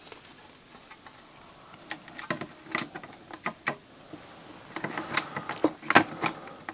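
Irregular clicks and light knocks of a circuit board being handled and set onto a CD drive's plastic chassis, busiest about two seconds in and again around five to six seconds in.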